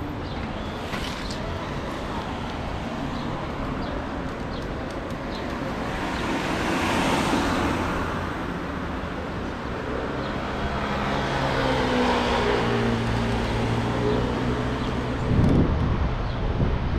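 Street traffic: a car goes by, swelling and fading about seven seconds in, then a vehicle's engine hum passes with a slight dip in pitch. A short thud comes near the end.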